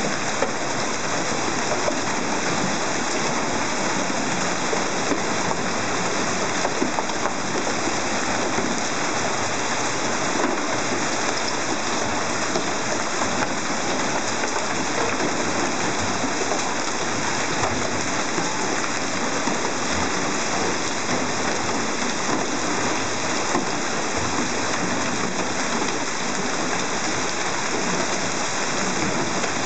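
Heavy hailstorm: hailstones mixed with rain falling densely and steadily on the street, a continuous patter of many small impacts.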